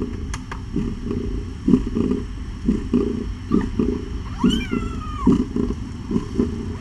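Newborn kitten giving one thin cry about four seconds in, its pitch rising and then falling, over soft irregular rustling.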